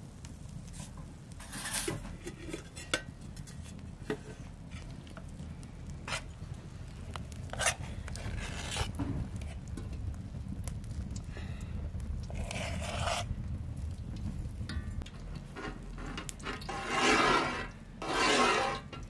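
Metal scraping and clinking as batter is spooned from a metal bowl onto a wide steel pan set over a wood fire. A low steady rumble runs underneath, with scattered fire crackles. The loudest scrapes come twice near the end.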